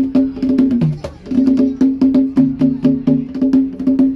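Two hand drums struck with bare hands in a fast, interlocking rhythm of ringing open tones at a higher and a lower pitch with sharp slaps between them. The playing eases briefly about a second in, then picks up again.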